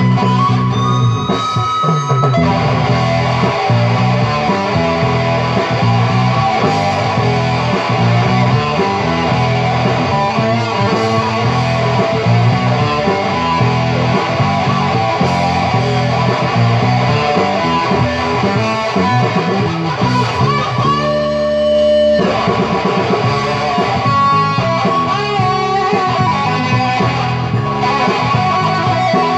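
Electric guitar played live, a continuous instrumental with sustained notes and a note bent upward about a second in.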